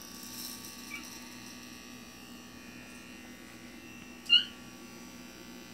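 Electric hair clippers buzzing steadily while trimming hair, with a short high-pitched squeak about four seconds in.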